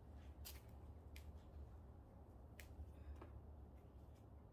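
Faint, sharp snaps of large foxglove leaves being broken off the stem by hand, about four spread through the few seconds, over a steady low hum.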